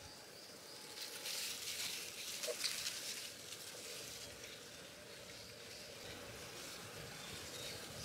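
Faint outdoor natural ambience: a soft rustling hiss that swells about a second in and eases after a few seconds, with faint high chirps.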